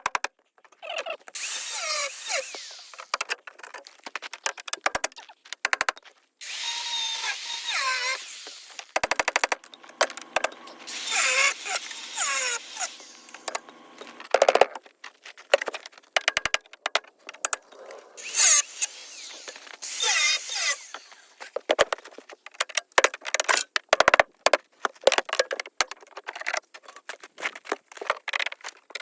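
Handheld power tool, drill-like, running in repeated short bursts that speed up and slow down, with clicks and knocks between them, as bolts are worked loose.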